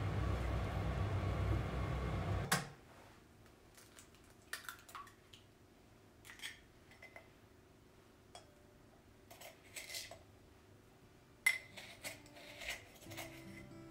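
A steady rushing noise from a saucepan of thick soup being stirred on an induction hob cuts off about two and a half seconds in. Quiet kitchen handling follows: an egg cracked into a glass mixing bowl, soft taps and clinks, and a sharp tap near the end as the wooden lid comes off a ceramic canister.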